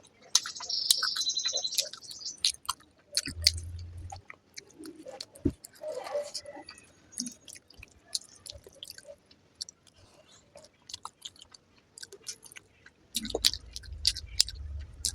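Close-up chewing and wet mouth sounds of a person eating fried rice with egg curry, with many small irregular clicks and smacks.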